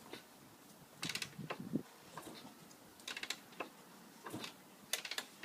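Quiet, sharp clicks and light taps in short rapid clusters: about a second in, around three seconds in, and again near the end.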